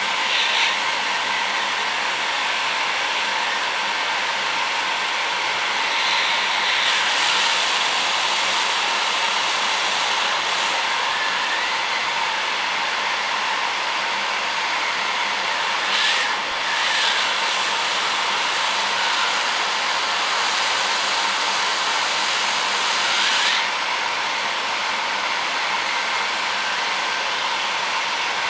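Construction heat gun blowing a steady hiss of hot air up onto an LED bulb's aluminium LED board, heating it to melt the solder so an LED can be lifted off. The hiss grows brighter for a few seconds at a time, several times.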